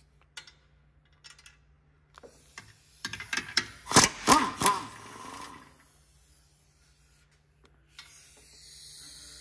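Metal hand tools clinking and knocking against car parts: a few scattered clicks, then a louder run of knocks and clinks with some ringing about three to five seconds in.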